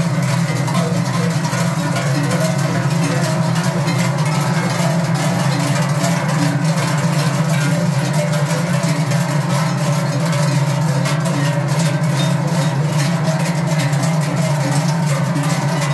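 Many large Swiss Treichel bells, forged sheet-iron cowbells carried in pairs on shoulder yokes, clanging together without pause as the bearers walk in step: a dense, steady clanging.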